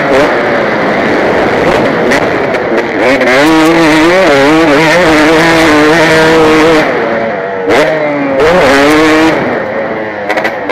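KTM 250 motocross bike's engine heard close up from the rider's helmet, revving up and down over and over as it is ridden hard around the track, loud throughout.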